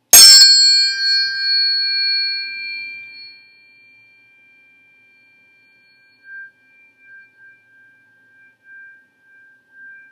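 A pair of sound-healing tuning forks struck once with a sharp click, ringing in two high, steady tones that fade over about three seconds. In the second half the faint ringing swells and dips again and again as the forks are waved about.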